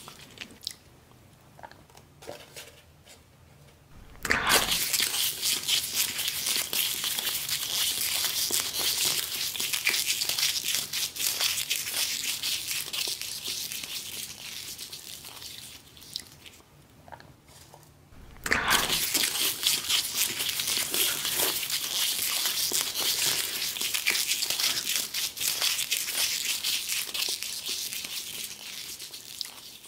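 Paper towel crinkling and rustling in the hands as a pile of fresh red chilies is held and shifted on it. It comes as a dense crackle in two long stretches, starting about 4 s in and again about 18 s in.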